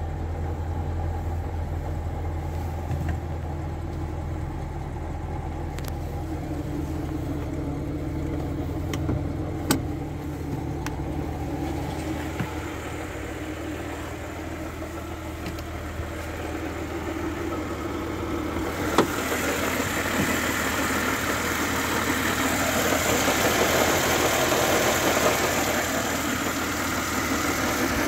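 VAZ-2107 Lada's 1.5-litre carbureted four-cylinder engine idling steadily while warming up after a cold start. About two-thirds of the way through it gets louder and brighter, heard with the bonnet open, and a few light clicks sound along the way.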